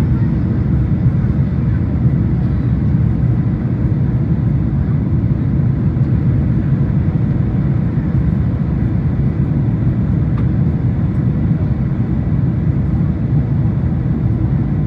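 Cabin noise of a Boeing 747-400 in flight, heard from a window seat by the wing: a steady low rumble of its General Electric CF6 turbofan engines and the airflow, with a faint steady whine above it.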